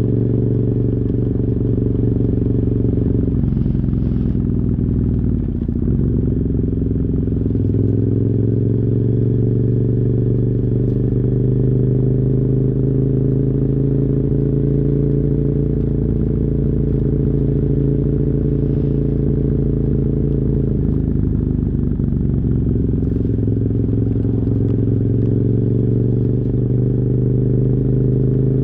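A 2007 KTM 990 Super Duke R's 75-degree V-twin runs on the move through dual Yoshimura carbon exhausts, muffled as heard from a phone in the rider's backpack. Its note drops twice and climbs back up.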